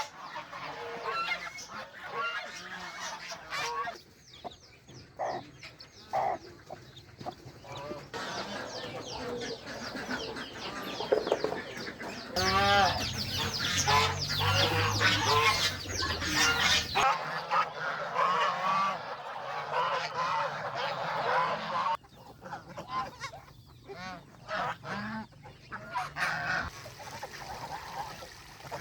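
Farm geese honking in a flock, with other poultry calling among them. The calling is densest and loudest about halfway through.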